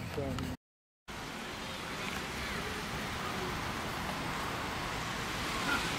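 Steady outdoor background hiss, an even noise with no clear single source, broken by a half-second drop-out to silence just after the start. A few faint, short high chirps sit over it.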